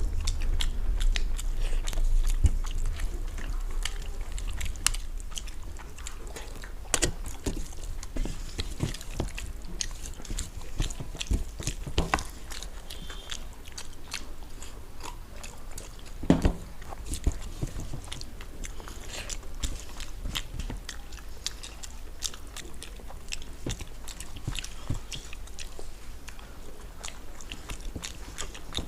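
Close-up eating sounds: chewing and biting into masala-fried fish and rice, with scattered small crunches and clicks.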